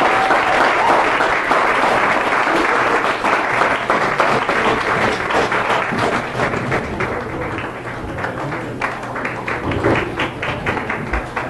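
Audience applauding: dense clapping at first, thinning over the last few seconds to scattered individual claps.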